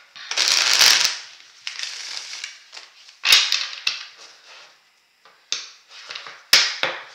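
A deck of tarot cards being shuffled by hand: several bursts of rustling cards with sharp snaps. The longest burst comes in the first second, and shorter ones follow at about three, five and a half, and six and a half seconds.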